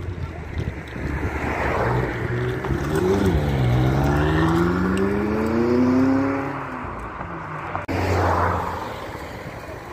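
McLaren supercar's twin-turbo V8 accelerating hard away, the revs climbing, dropping briefly at a gear change about three seconds in, then climbing again through the next gear before falling away as it passes. Near the end the sound cuts suddenly to a quieter engine.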